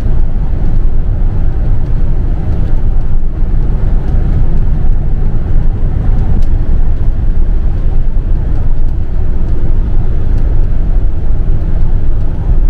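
Steady low rumble of engine and tyre noise heard inside a motorhome's cab while it cruises at motorway speed.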